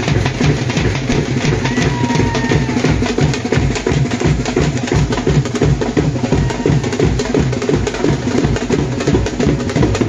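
Wedding band drums playing a loud, steady dance rhythm, led by a large bass drum.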